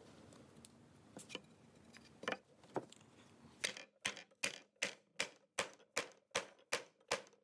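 Mallet blows on a plywood board laid over a glued wood Dutchman patch, driving the patch down into its routed recess in a table top: a few faint knocks, then from about three and a half seconds in a steady run of about ten sharp taps, nearly three a second.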